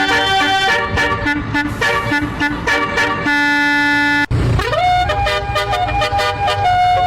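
Basuri (telolet) musical bus horn playing a tune in quick stepped notes. About four seconds in, a held chord cuts off sharply, then the horn slides up into a long held note.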